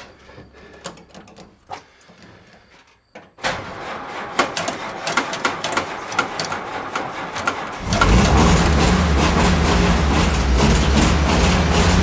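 1943 Willys MB's four-cylinder flathead engine being started: after a few faint clicks, the starter cranks it for about four seconds, and it catches about eight seconds in and runs steadily and loudly.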